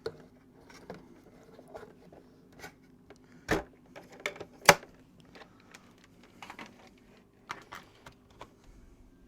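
Scattered clicks, taps and knocks of someone handling a canister vacuum cleaner while getting it ready to switch on, with two sharper knocks about three and a half and nearly five seconds in.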